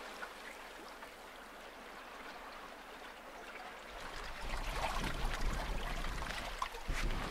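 Water rushing and trickling along the hull of a small sailing yacht under way. About four seconds in, wind buffeting the microphone comes in with a low rumble, over louder splashing of waves against the boat.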